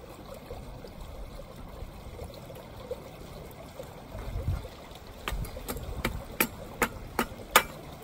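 Wood fire burning in a samovar's firebox: a low steady rush, then a quick run of about seven sharp cracks over the last three seconds, the loudest near the end.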